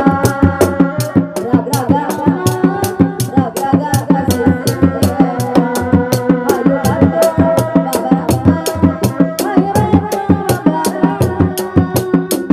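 Sundanese reak ensemble playing: dogdog drums beat a steady, fast rhythm of about four strokes a second, with a pitched melody held over them.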